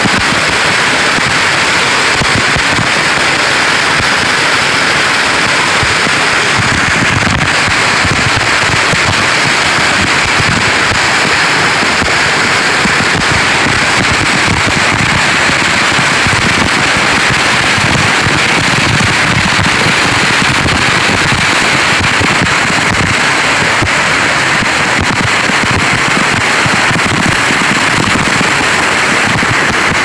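Waterfall pouring right beside the microphone, with spray spattering onto it: a loud, steady rush full of fine spatters.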